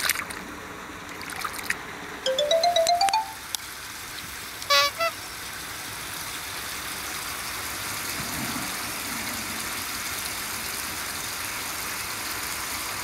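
A splash as a fish drops back into the water, then an edited-in electronic jingle: a quick rising run of beeping notes about two seconds in, and a short chime near five seconds. After that, a steady hiss of background noise.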